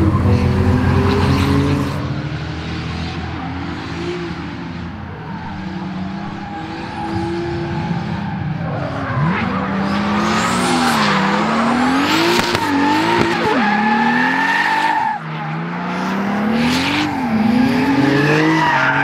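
Turbocharged BMW drift car being driven sideways. The engine note holds steady for the first couple of seconds, then climbs and drops again and again as it is revved through the slide. Tyres squeal and skid through the second half.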